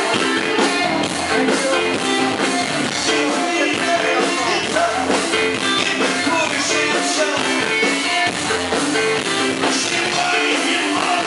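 Live rock band playing loud through a PA: electric guitar and drum kit with a man singing lead.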